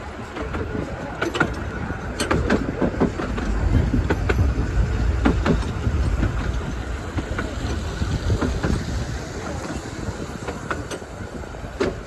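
Miniature railway coach rolling along the track: a steady low rumble with irregular clicks and knocks from the wheels, growing louder about four seconds in before easing off.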